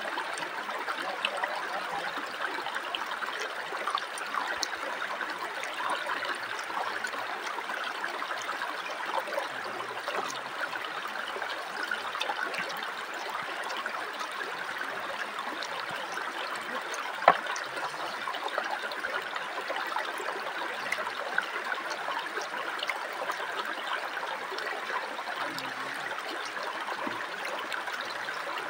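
Shallow river running over rocks: a steady babble of water, with small scattered ticks and one sharp click about seventeen seconds in.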